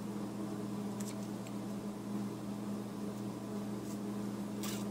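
Steady low electrical hum of the room, with a few faint light clicks and a brief soft rustle near the end as paper is handled at the craft table.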